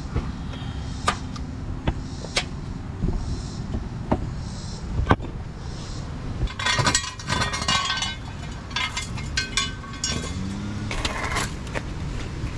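Scattered sharp clicks and light metallic clinks over a steady low rumble, with a couple of short clattering rattles in the second half.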